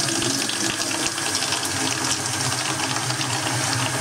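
Cold water running from a laundry-sink faucet into a plastic bucket, a steady splashing hiss, with a steady low hum in the plumbing underneath, which the owner blames on thermal expansion.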